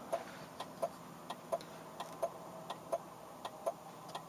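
Radar detector sounding a K-band alert as a train of short beeping ticks, about four a second, set off by a weak signal from a K-band speed camera.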